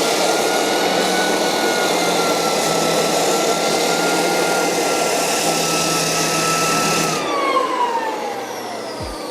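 Floor edger sander with a 40-grit disc running at full speed, a steady high motor whine over a rushing noise. About seven seconds in it is switched off and the whine falls in pitch as the motor spins down.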